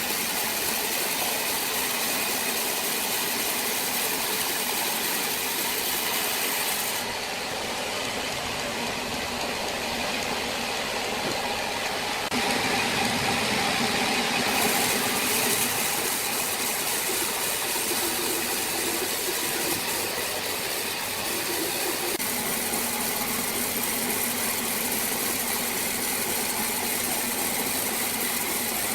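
Motor-driven wood saw running steadily with a mechanical rattle, louder for a few seconds near the middle.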